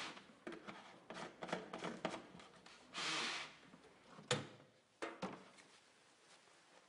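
Handling of the rinsing device's plastic separator tank and canister: a run of light clicks and knocks, a short hiss about three seconds in, and a sharp click just after four seconds.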